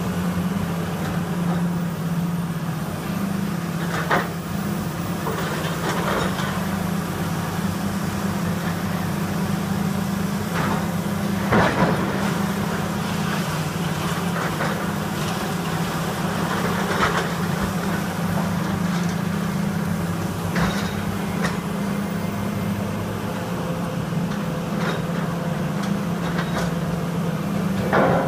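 Komatsu PC400 hydraulic excavator's diesel engine running steadily under load, with scattered crashes and crunches of brick and debris as its demolition grapple tears at the building; the sharpest crashes come a little before halfway and near the end.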